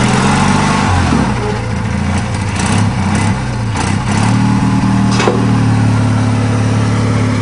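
Argo eight-wheeled amphibious ATV's small engine running under load as the vehicle drives onto a steel ramp, its pitch shifting and then pulling harder and steadier from about four seconds in, with a few short sharp knocks.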